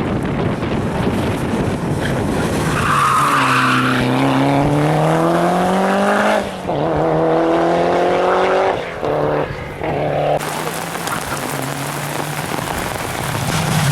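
Rally car at full throttle, engine pitch climbing hard through the gears with short breaks and drops at the upshifts about six and a half and nine seconds in, over tyre noise on the stage surface.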